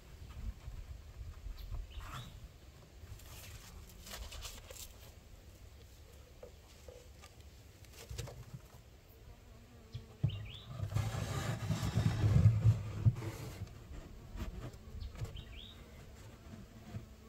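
Close handling noise as a beekeeper works over an open wooden hive: fabric of the veil and suit brushing near the microphone over a low rumble, with scattered light knocks. A louder stretch of rustling comes a little past the middle, and a couple of short high chirps are heard.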